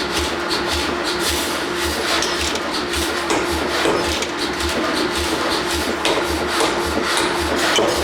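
Forging shop machinery running: a steady machine hum with a rhythmic low thumping about two to three times a second, and scattered metallic knocks and scraping.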